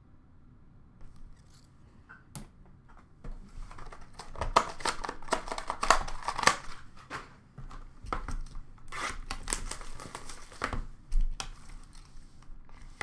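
Trading-card packaging and wrappers crinkling and rustling under hands, with sharp clicks and snaps. It starts after about three quiet seconds and is busiest in two spells, in the middle and again about nine seconds in.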